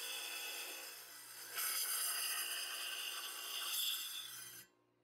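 Small diamond-blade rock saw grinding through a small sugar geode pressed against it by hand: a steady high hiss with a whine, easing a little about a second in and louder again from under two seconds in. It cuts off suddenly near the end.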